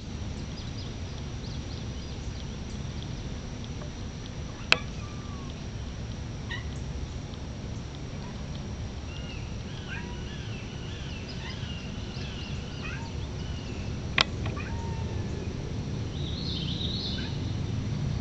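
Faint, high-pitched animal calls, several in a run about halfway through and a few more near the end, over a steady low rumble, with two sharp clicks.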